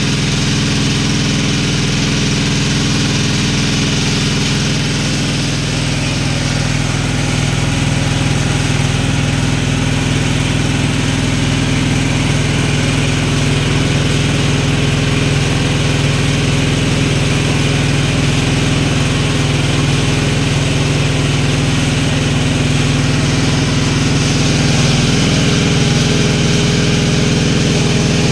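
Water pump engine running steadily, with water gushing and splashing into a dug well as it is pumped.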